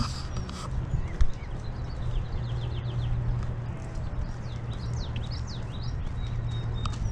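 Small birds chirping, with a quick run of short high notes around the middle, over a steady low rumble. One sharp thump about a second in.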